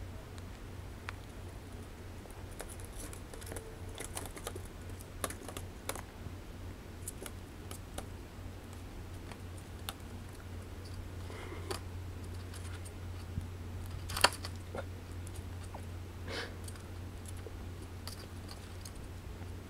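Laptop keyboard keys clicking and tapping irregularly as a hedgehog walks over them, pressing keys at random with its feet. The clicks come scattered and uneven, a few louder than the rest.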